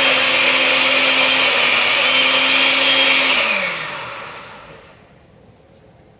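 Electric kitchen blender running at a steady high speed, then switched off about three and a half seconds in, its motor whine falling in pitch as it spins down to a stop.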